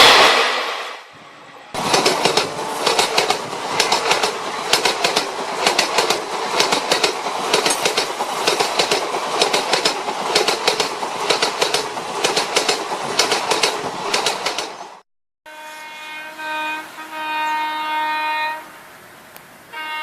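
Train running on rails, its wheels clacking rapidly over the rail joints under a steady rumble. After a cut, a steady multi-tone whine from the train that shifts in pitch in steps.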